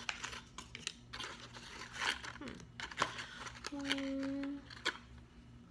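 Toy packaging being handled and torn open by hand, with scattered crackles and rustles of cardboard and wrapper. A short hummed note comes about two-thirds of the way through.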